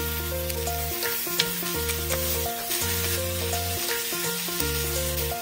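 Spinach sautéing in oil in a hot pan, with a steady sizzle, under background music that has an even, pulsing bass beat.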